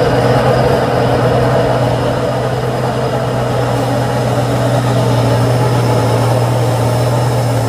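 Mitsubishi Fuso 220PS 6x4 dump truck's diesel engine running under load as the loaded truck climbs the slope, a steady, unbroken drone.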